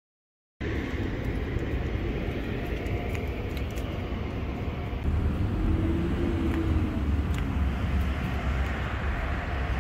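Steady outdoor background rumble with a hiss over it, starting abruptly just under a second in and growing a little louder about halfway through.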